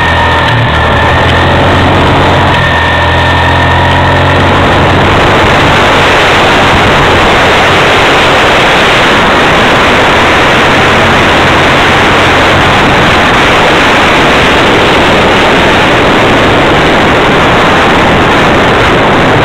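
325 quad (ATV) engine running under way: a steady engine drone with a light whine for the first few seconds. From about five seconds in, a loud even rushing noise of wind on the microphone at speed covers the engine.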